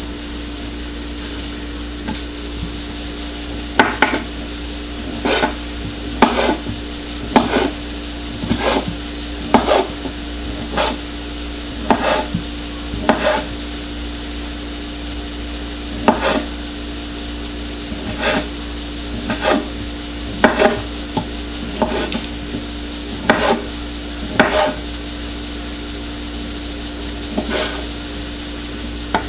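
Chef's knife slicing smoked sausage into chunks, the blade knocking down onto a wooden cutting board about once a second with a few pauses, over a steady low hum.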